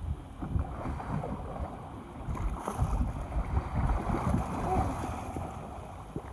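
Wind buffeting the microphone in uneven gusts, over sea water washing against the side of a small fishing boat.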